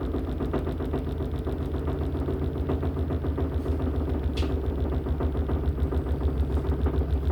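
LG top-loading washing machine running, most likely in its spin cycle: a steady motor hum with a rhythmic pulsing of the turning tub that grows stronger near the end, about four pulses a second.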